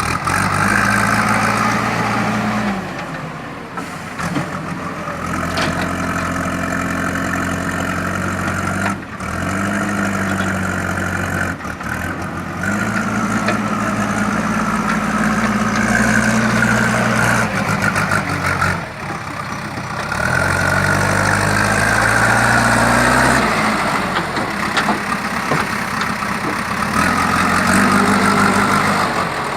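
Four-cylinder diesel engine of a JCB 3DX backhoe loader running under load, its revs rising and falling in several stretches as the machine works, with a whine above the engine note.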